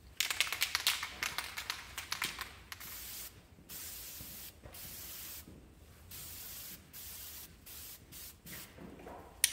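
Aerosol spray paint can rattling for the first few seconds as it is shaken, then sprayed in a series of short hissing bursts, each under a second.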